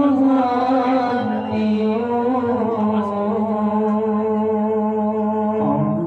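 A man's voice chanting in long, drawn-out notes that step slowly from pitch to pitch: a qori's melodic recitation.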